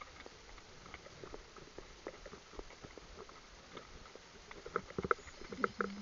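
Trotters' hooves on a gravel track: irregular small clicks and crunches of steps, with louder strikes near the end.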